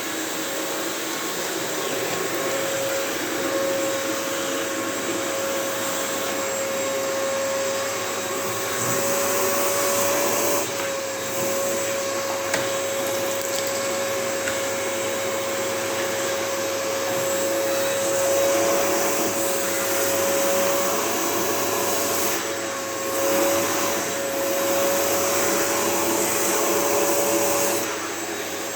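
Vacuum cleaner running steadily while being used on a cat, a loud rushing whoosh with a constant whine. Its loudness and tone shift briefly a few times as it is moved.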